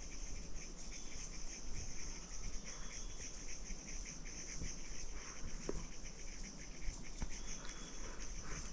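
Insects chirping in a steady, high-pitched chorus with a fast, even pulse, typical of crickets.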